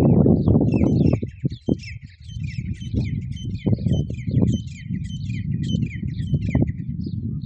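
Many small birds chirping rapidly and densely at a feeding spot, over a low rumbling noise with irregular thumps that is loudest in the first second.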